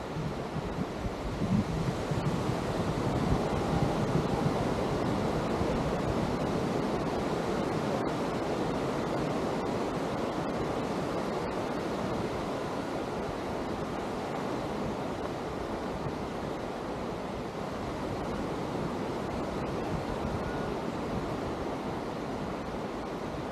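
Atlantic surf washing onto a sandy beach, a steady rushing wash of waves. Wind buffets the microphone, strongest in the first two seconds.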